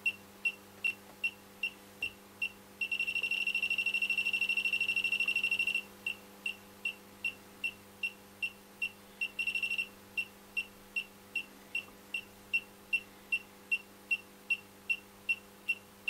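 Elitech WJL-6000 halogen refrigerant leak detector beeping, about two high beeps a second. About three seconds in it speeds up to a rapid, almost continuous beeping for about three seconds, and it speeds up again briefly near the middle: its alarm for refrigerant gas at the probe tip.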